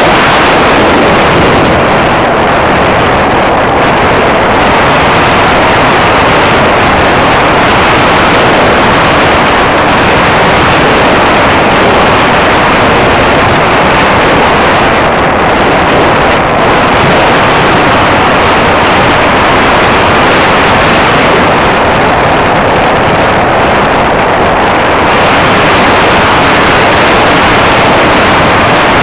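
Loud, steady rushing of wind and propeller noise on the microphone of a small camera mounted on an airplane in flight.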